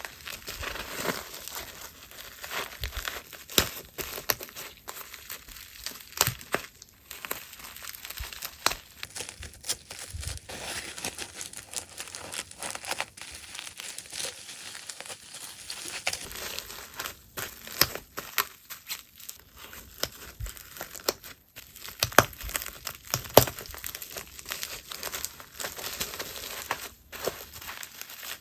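Packaging crinkling and rustling as goods are wrapped by hand, with frequent small taps and clicks.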